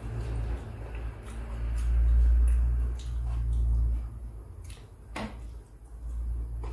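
Close-up eating sounds: chewing and small mouth clicks while eating fried tilapia by hand, with one sharper smack about five seconds in, over a steady low background rumble.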